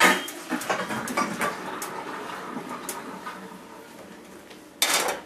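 Hot water poured off a pot of boiled fingerling potatoes to drain them: a splashing rush that starts strong and tapers off over a few seconds as the pot empties. A short clatter near the end.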